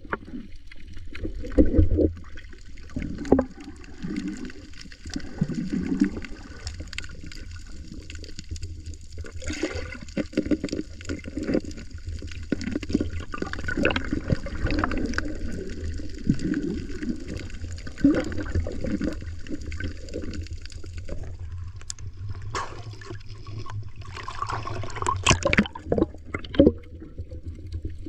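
Muffled underwater sound from a camera held beneath the sea surface: a steady low rumble of water with irregular gurgling and bubbling.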